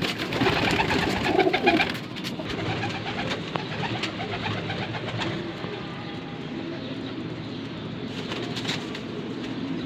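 Domestic pigeons cooing in the loft, a steady low murmur, with louder rustling and a few sharp clicks in the first two seconds.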